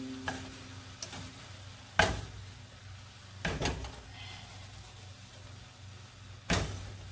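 Rice noodles being tossed and stirred with wooden chopsticks in a stainless steel pan over a faint sizzle, with three sharp knocks against the pan about two, three and a half and six and a half seconds in.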